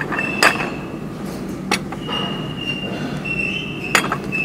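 Porcelain plates knocking and clinking as they are handled, three sharp clinks, over a steady thin high whine.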